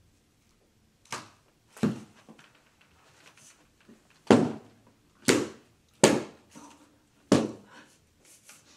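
A Swiffer sweeper being whacked hard again and again, swatting at a large many-legged bug: six loud sharp strikes at uneven spacing, starting about a second in, with lighter knocks between them.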